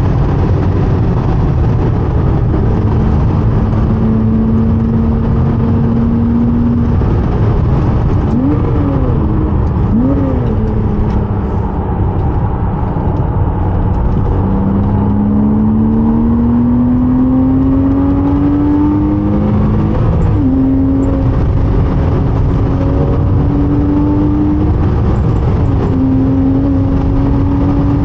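Porsche 987.2 Cayman S flat-six engine pulling hard under heavy road and wind noise. Twice, about a third of the way in, the revs fall and jump back up as it shifts down. It then climbs steadily through a gear, shifts about two-thirds of the way in, and pulls again.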